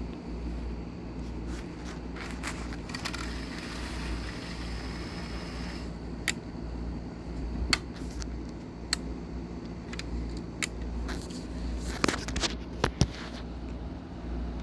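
Model train running on the layout's track: a steady low motor hum with a pulsing rumble, and scattered sharp clicks as it rolls along, several loud ones close together near the end.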